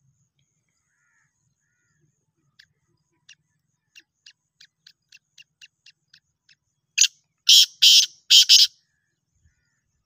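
Black francolin calling: a run of soft short clicks, about four a second, then about seven seconds in a loud, harsh call of four rasping notes.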